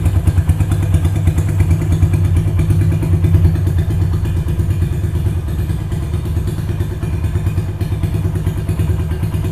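Honda Mega Pro single-cylinder four-stroke engine of a GL100-style custom motorcycle idling, an even, fast run of exhaust pulses.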